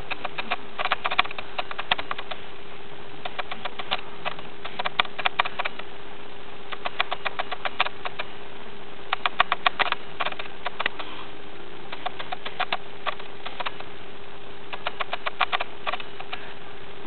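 Two cats play-wrestling, their claws scrabbling in irregular bursts of rapid clicking and scratching, over a steady faint hum.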